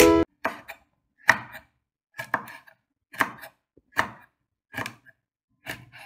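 Kitchen knife slicing petai (stink beans) on a wooden chopping board: separate cuts, each a short knock of the blade onto the wood, about once a second.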